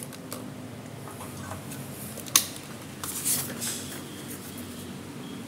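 A single sharp click, then the crisp rustle of a paper banknote being picked up and handled, over a low steady hum.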